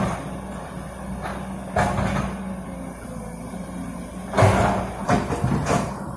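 An engine running steadily with a low hum, broken by loud knocks and clunks near the start, about two seconds in, and in a cluster from about four and a half seconds on.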